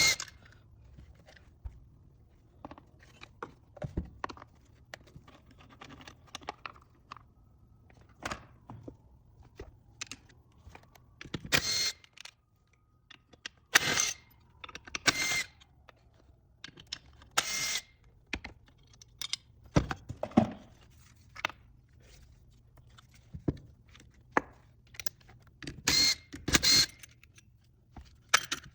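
Metal hand tools and small engine parts clinking, knocking and scraping as an engine is taken apart, with scattered light clicks and a few louder clinks that ring briefly, around the middle and near the end.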